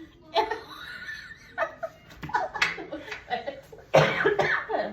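People laughing in bursts, with a sudden louder outburst of laughter about four seconds in.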